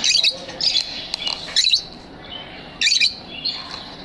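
Lovebirds chirping: four loud bursts of shrill, rapid chirps over a steady background of softer twittering.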